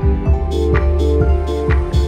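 Background music: sustained electronic chords over a steady beat of about two strokes a second.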